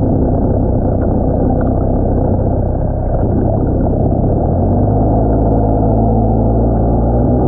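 Muffled, steady low drone of a watercraft engine heard underwater through a camera's waterproof housing, with the high end of the sound cut away.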